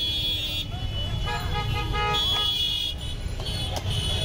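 Road traffic with a steady low rumble, and horns sounding in stretches over it as high, steady tones.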